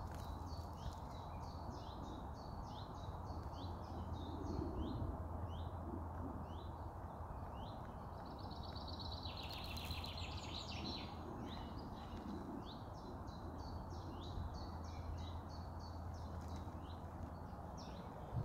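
Small songbirds singing in woodland: short chirps repeated again and again, with a faster, denser trill about ten seconds in, over a steady low background rumble.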